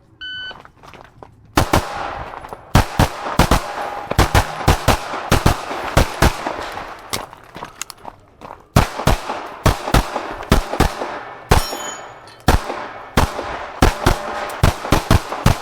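A short electronic shot-timer beep, then a Glock pistol firing a long string of rapid shots, often two or three in quick succession, with a lull of about a second near the middle.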